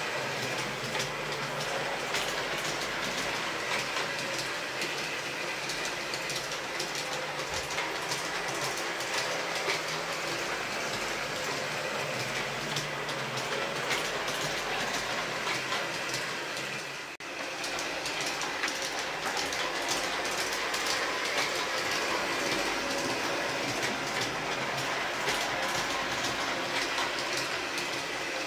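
LGB G-scale model train running laps on sectional track laid on a hard floor. The electric locomotives' motors and gears give a steady whirr, with a fast clicking of wheels over the rail joints. The sound dips briefly about two-thirds of the way through.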